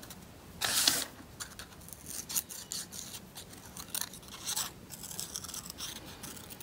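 Small craft scissors snipping a small piece of thin paper in short cuts, the loudest a little under a second in, with faint paper rustling between.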